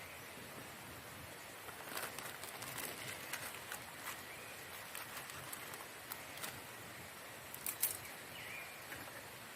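Quiet forest ambience with a steady faint hiss, a few short bird chirps, and scattered sharp clicks and crackles, the loudest a brief cluster just before the end.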